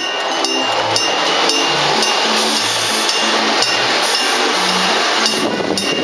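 A railway level crossing's electric alarm bell ringing continuously with rapid strikes, over background music with a steady beat.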